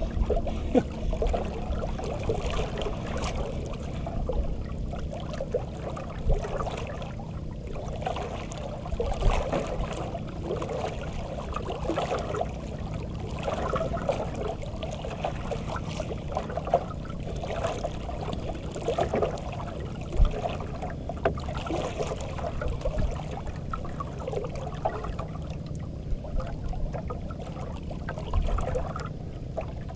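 Water sloshing and lapping against the hull of a small outrigger boat, in uneven surges, over a steady low hum, with a few small knocks.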